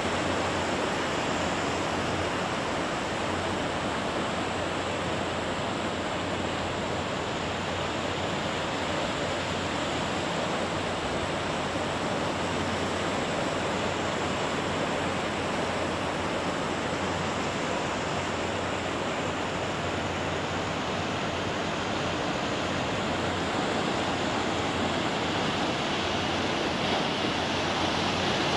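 Flash-flood water rushing steadily down a desert arroyo, a constant even rush of muddy runoff.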